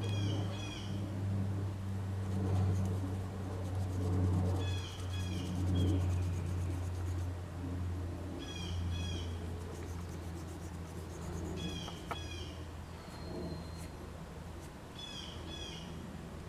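A bird chirping a short, repeated phrase of a few quick notes, five or six times, over a steady low hum.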